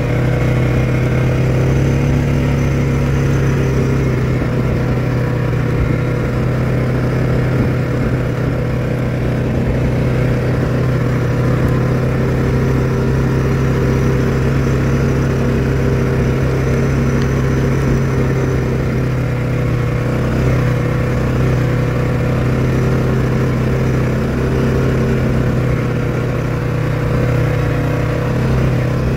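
Four-wheeler (ATV) engine running steadily, its pitch holding nearly constant with only slight rises and dips.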